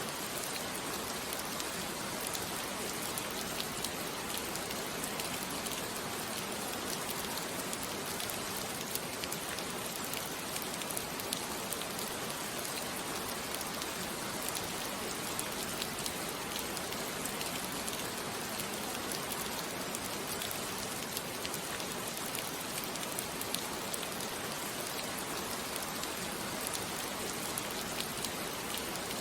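Steady rain falling on a surface, with many faint individual drop ticks through an even hiss.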